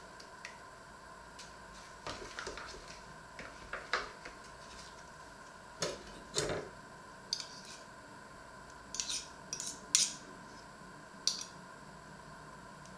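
Metal cutlery clinking and scraping on a china plate: irregular sharp taps and scrapes in small clusters, the loudest about ten seconds in.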